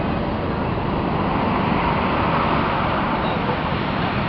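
Highway traffic passing below: a steady wash of motorcycle and car noise, swelling a little a couple of seconds in.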